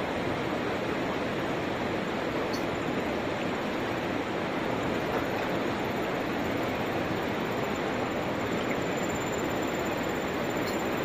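River water rushing over rapids: a steady, unbroken rush.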